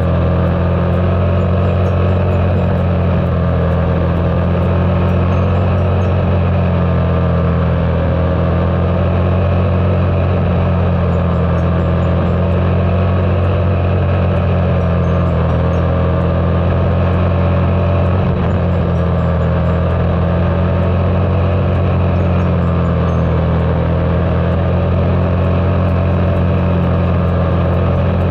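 Quarter midget race car's small single-cylinder engine running steadily at racing speed, heard from on board over a heavy low rumble, its pitch rising and falling gently every few seconds as it circles the oval.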